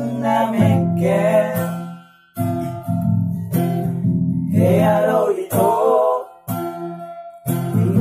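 Nylon-string classical guitar strummed in chords, with a man singing a Batak song in short phrases. The playing drops out briefly about two seconds in, then resumes.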